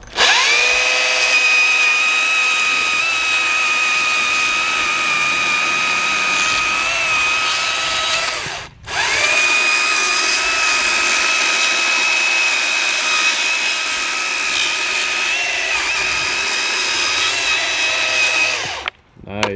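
Battery-powered STIHL top-handle chainsaw running at full speed and cutting through a log, a steady high whine that dips slightly in pitch as the chain bites. It stops for a moment a little before halfway, starts again and stops near the end.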